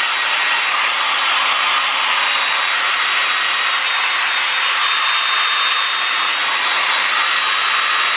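Handheld hair dryer running steadily on the cool setting, blowing on a Shih Tzu puppy's face: an even rush of air with a faint thin whine above it.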